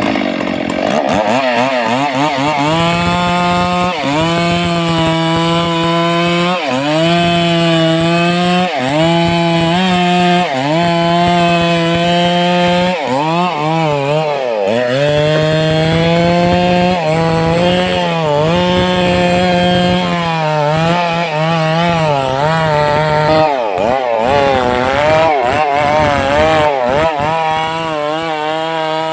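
Stihl MS 382 two-stroke chainsaw running at full throttle while cutting into a sengon trunk. The engine pitch sags briefly and recovers again and again as the chain bites into the wood under load.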